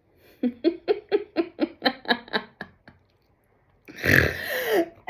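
A woman laughing in a quick run of short 'ha' pulses, then a loud, harsh vocal outburst with a falling pitch near the end.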